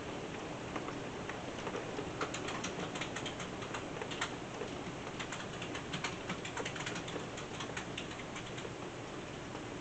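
Steady rain, with many irregular drops ticking sharply on a hard surface, thickest in the middle of the stretch.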